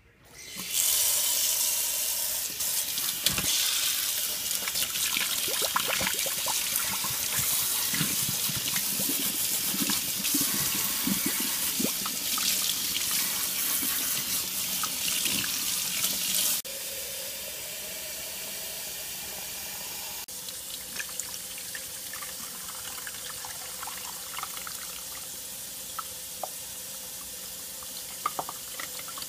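Kitchen faucet running hard into a stainless steel sink, splashing through a reusable coffee filter basket held under it. About two-thirds through the rush stops abruptly, and a quieter pour of water into the coffee maker's water reservoir follows.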